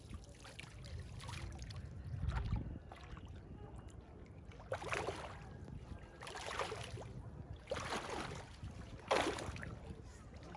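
Four splashes of water, about a second and a half apart in the second half, over a low rumble of wind on the microphone.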